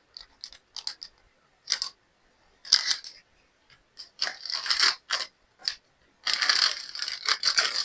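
Plastic product packaging crinkling and rustling in short bursts as it is handled and opened, the longest stretch near the end.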